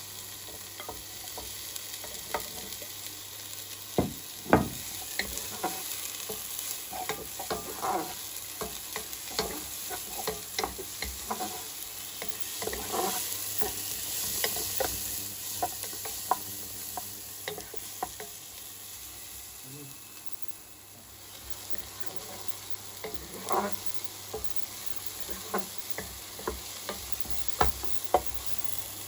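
Garlic, onions and sliced peppers sizzling in olive oil in a pan, with a utensil knocking and scraping against the pan many times as they are stirred. The sizzle dips briefly about two-thirds of the way through.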